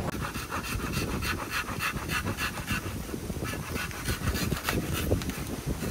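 Handsaw cutting through the base of a standing bamboo culm: quick, even back-and-forth strokes, several a second, with a brief pause about three seconds in.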